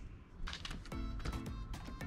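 Background music with a beat, coming in about half a second in after a brief lull.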